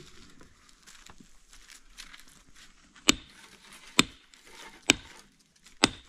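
Four sharp, loud blows about a second apart, starting about three seconds in, like a tool striking in steady work. Faint rustling comes before them.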